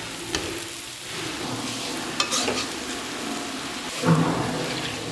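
Vegetables frying in hot oil in a pan, sizzling steadily, stirred with a few louder scrapes against the pan.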